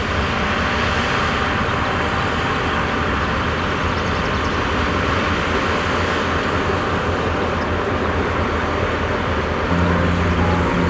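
Heavy diesel earthmoving machinery running steadily under load, with a strong low engine note that grows louder near the end.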